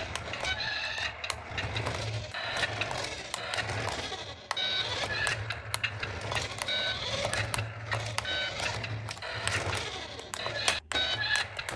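Small electric motor of a toy RC car whirring in uneven pulses, mixed with short electronic beeps and clicks.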